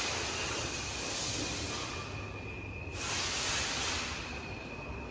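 Portable line boring machine running: a steady high whine, with a loud hiss that fades about two seconds in and comes back sharply about three seconds in.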